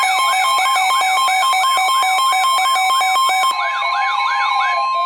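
NOAA Weather Radio warning alert tone, a steady tone near 1050 Hz, sounding together with a warbling siren-like alarm that sweeps up and down about three times a second. It is the attention signal that comes before a warning message, here a special marine warning.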